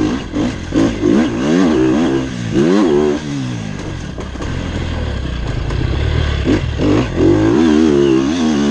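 Sherco 300 dirt bike engine revving up and down on the throttle as it is ridden, with quick rises and falls in pitch at first, a steadier pull in the middle, and the revs climbing again near the end.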